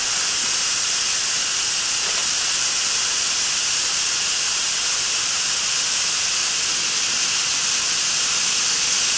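A one-inch strand of potassium nitrate and sugar rocket candy (plain propellant, no catalyst) burning with a steady, loud hiss as it jets flame and smoke. It burns slowly, at about 12 seconds per inch.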